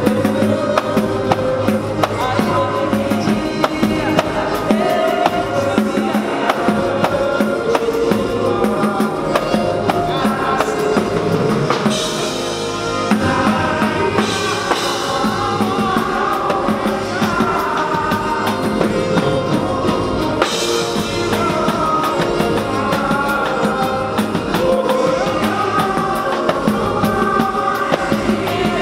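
Live pagode band playing: cavaquinho strumming over bass and a steady drum-kit beat, with a short break in the low end about twelve seconds in.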